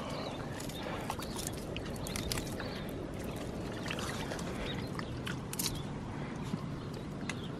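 A bare hand digging and squelching through soft, wet mangrove mud, with many scattered short clicks and pops over a steady hiss.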